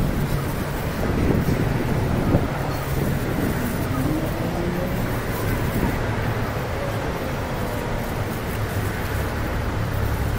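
Steady low background rumble, like a constant outdoor noise bed, with no distinct events.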